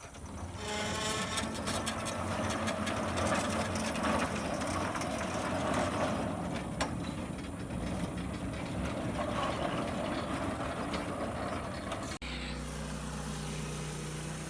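An engine runs up about half a second in, its pitch rising at first, then runs loud and noisy. Near the end, after an abrupt cut, an engine idles steadily.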